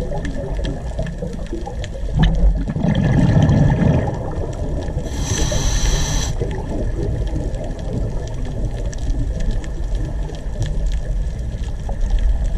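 Underwater sound picked up by a diver's camera: a steady low rumble with a louder surge of bubbling about two seconds in, which fits a scuba diver's exhaled bubbles. About five seconds in there is a hiss lasting just over a second, which fits breath drawn through the regulator.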